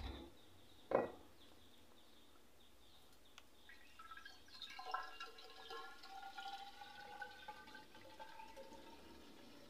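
Petrol being poured into a measuring jar: a faint liquid trickle and gurgle with a thin ringing tone, starting about four seconds in. Two sharp knocks in the first second, the second louder, come from the container being handled.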